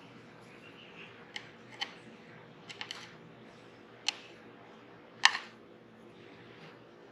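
Sharp clicks and taps of small hard parts being handled, about eight in all, the loudest about five seconds in, over a steady low hum.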